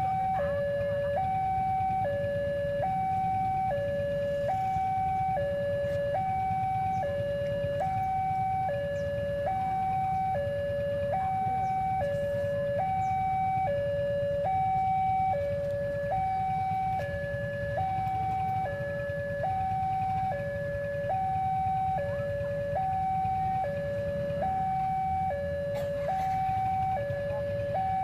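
Railway level-crossing warning alarm: an electronic two-tone signal alternating steadily between a higher and a lower note, each held just under a second. It signals an approaching train.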